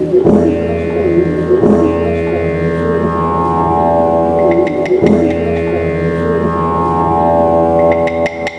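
Didgeridoo playing a steady low drone whose overtones sweep and shift in repeating cycles. Clapsticks come in faintly about halfway, then tap rapidly and steadily near the end.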